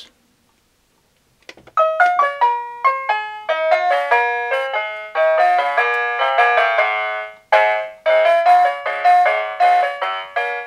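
Digital sound module of a Märklin 49981 Schimmel Pianos model railway car playing the next melody, selected with F3 on the Control Unit. It starts about two seconds in as a run of distinct notes with no bass, breaks off for a moment around the middle, then carries on.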